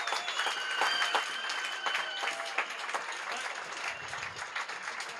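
A crowd applauding, with a few high, steady whistle-like tones over the clapping in the first couple of seconds; the clapping thins a little toward the end.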